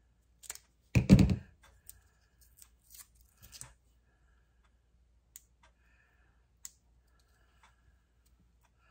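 Hands working with scrapbooking supplies on a tabletop, such as adhesive foam pieces: a sharp thump about a second in, then scattered light clicks and taps.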